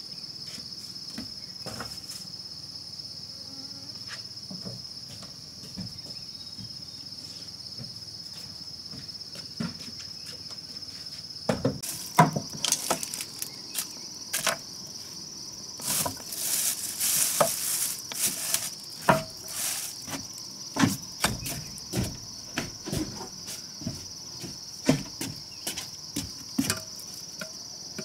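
A steady high-pitched insect chorus, like crickets, running throughout. From about twelve seconds in, irregular clicks, knocks and rustling as paint tins, a plastic bag and a tool are handled on a wooden stool.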